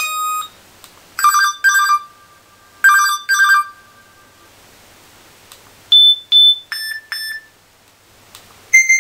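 Stock cell-phone ringtones played through the phone's small speaker. A warbling electronic double ring sounds twice, then four short beeps, two high and two lower, and a new tone starts near the end.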